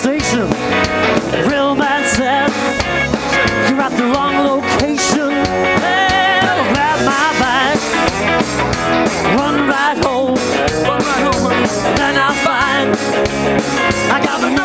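A live rock band, with electric guitar, bass and drum kit, playing an up-tempo rock and roll song, heard clean from the mixing desk feed.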